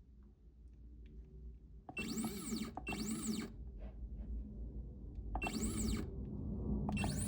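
Stepper motors of an entry-level CNC mill jogging the spindle in short moves: four brief whines, each rising and then falling in pitch, starting about two seconds in.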